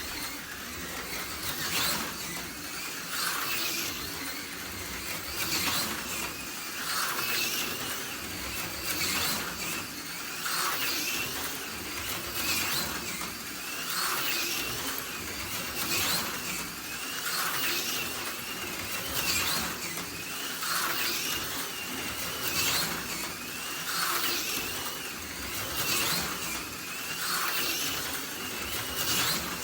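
AFX Super G-Plus HO-scale slot car running laps on the track: its small electric motor and gears whine steadily, the sound swelling and fading about every one and a half to two seconds as the car circles.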